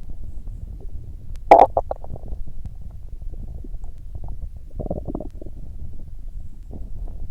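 Human stomach growling: a low continuous rumble with a sharp, loud gurgle about a second and a half in and a second gurgle about five seconds in.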